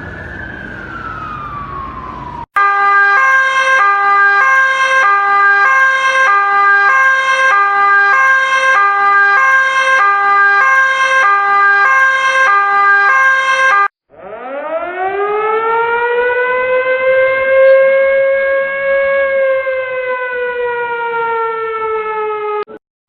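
A run of emergency alert alarms. First a siren tone glides down in pitch and stops. Then an electronic alarm plays two alternating notes, about two a second, over a steady high tone for about eleven seconds. After a brief gap, a siren winds up steeply, holds and slowly sinks in pitch until it cuts off near the end.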